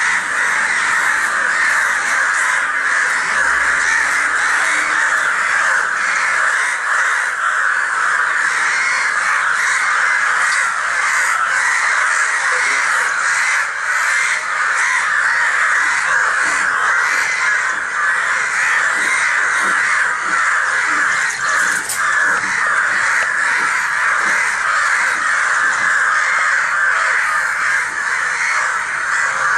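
A large flock of crows cawing without pause, many calls overlapping into one dense din: alarm calling by crows gathered over a fallen, injured crow.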